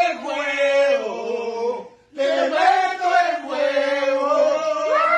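Men's voices chanting in long, drawn-out held notes: two sustained phrases with a short break about two seconds in.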